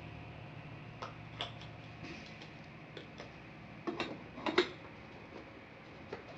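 Light plastic clicks and taps from handling the small humidifier's lid and filter, scattered a few at a time, with a louder cluster about four seconds in.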